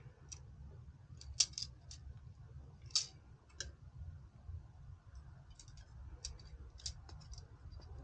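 Irregular light clicks and ticks of small computer hardware being handled, over a low steady hum. Two sharper clicks come about a second and a half and three seconds in, and a quicker run of clicks follows near the end.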